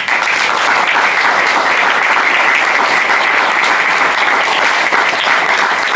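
Audience applauding, a steady dense clapping that starts abruptly at the close of a speech.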